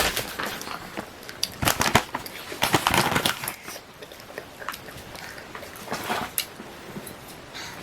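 Close-up eating sounds of earth jelly gummy candy: short bursts of crackling and clicking as the candy and its wrapper are handled and bitten, two clusters in the first few seconds and a lone click later.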